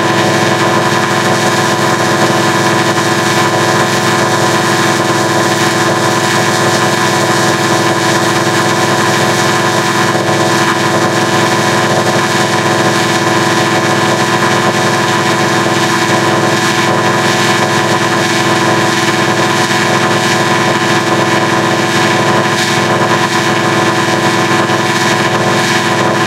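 Loud, harshly distorted electronic drone: a logo jingle's audio run through stacked audio effects, smeared into a steady buzz of many fixed tones.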